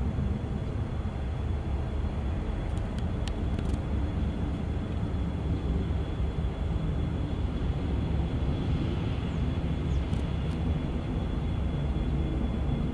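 Steady low rumble of a twin-engine UPS Airbus A300 freighter's jet engines passing high overhead, with a few light clicks about three seconds in and again near ten seconds.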